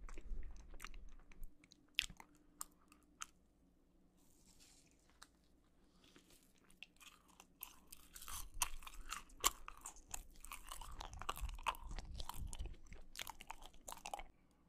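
Close-miked chewing of a giant marshmallow: mouth sounds with many small sharp clicks. They go quiet for a few seconds about three seconds in, then turn dense and busy from about halfway until near the end.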